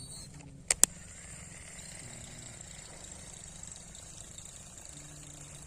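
Two quick, sharp clicks close together about a second in, then steady outdoor background with a constant high-pitched hiss and a faint low hum coming and going.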